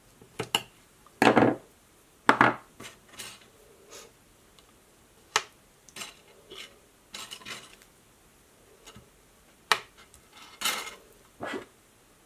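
Thin metal cutting dies clicking and clinking as they are handled and laid onto a sheet of card. About one and two seconds in come two louder scraping sounds from tape being pulled from the roll and cut with scissors.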